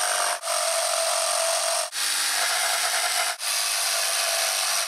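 Corded jigsaw running and cutting across the wooden slats of a pallet, a loud steady whine that drops out briefly about every one and a half seconds.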